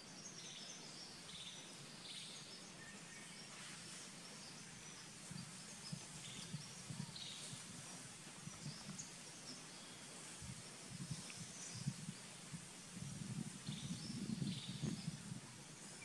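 Forest ambience: scattered short bird chirps over a steady high insect hiss. Irregular low rumbling bursts, loudest near the end, cover the second half.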